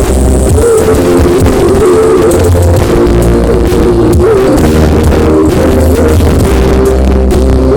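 Very loud dance music blasting from a carnival sound-system rig, with heavy, pounding bass under a wavering lead melody.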